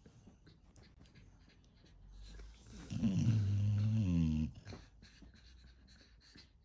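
A dog's single low, drawn-out vocal sound about three seconds in, lasting a second and a half, its pitch dropping at first and then holding steady; faint ticks and scuffs around it.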